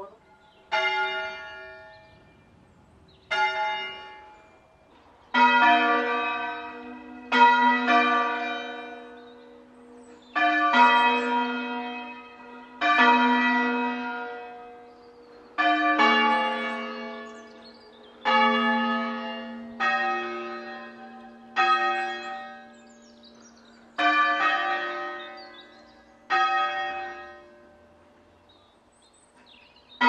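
Church tower bells struck one at a time, about a dozen strokes roughly two seconds apart in several different pitches, each ringing on and dying away before the next.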